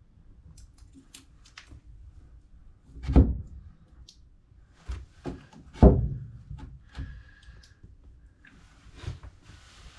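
Hand work with tools and pipe fittings: two heavy thunks, about three and six seconds in, among lighter knocks and clicks.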